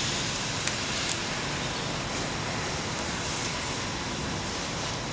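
Steady, hiss-like workshop background noise, with two light clicks about a second in as the plastic sewing template and its strips are handled.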